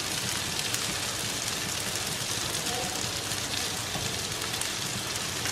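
Mushrooms and shallots sizzling steadily in butter in a frying pan over high heat.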